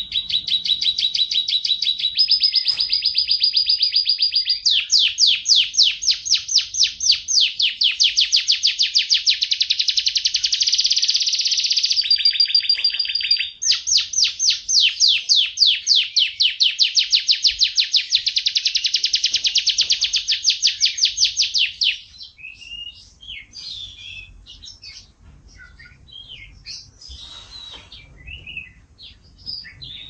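F1 canary singing a long song of fast rolling trills, broken twice by a steady whistled note. About twenty-two seconds in the trilling stops and gives way to scattered short chirps and twitters.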